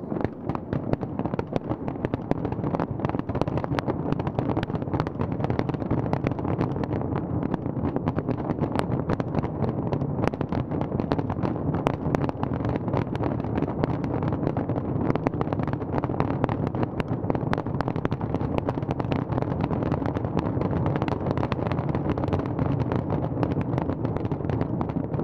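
A large fireworks display in full barrage: a dense, unbroken stream of pops and crackles over a steady low rumble of many shells bursting at once.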